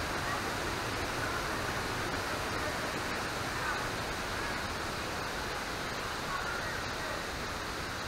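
Steady rush of Wachirathan Waterfall's falling water, an even noise without let-up.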